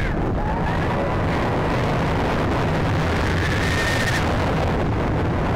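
Onboard roller coaster ride: a steady rush of wind over the microphone with a deep rumble from the train running on the track.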